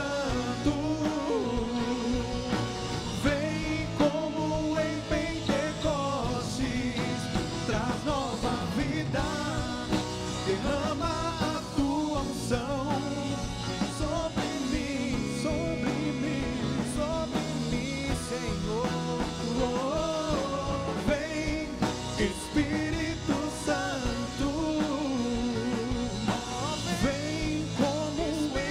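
A song with a singer's voice carrying the melody over band accompaniment with sustained low notes.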